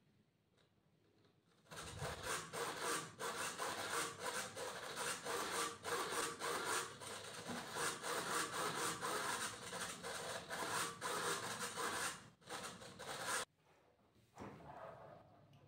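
Small hobby servos buzzing and grinding in rapid, short back-and-forth movements as they drive the foam plane's control surfaces. They are reacting to the home-made Arduino flight controller being tilted by hand. The noise starts nearly two seconds in and cuts off abruptly about thirteen seconds in.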